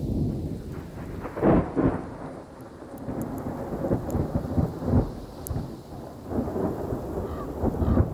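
Thunder rumbling in irregular rolls and crackles, with the loudest swell about a second and a half in.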